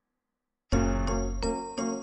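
Background music that starts suddenly about a third of the way in, with a heavy bass and bright chiming notes struck about every half second.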